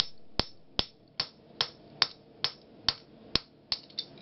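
Hand hammer striking the top die of a blacksmith's guillotine fuller tool, driving it into a red-hot steel bar: about a dozen sharp metallic blows in a steady rhythm of roughly two and a half a second, each with a short ring.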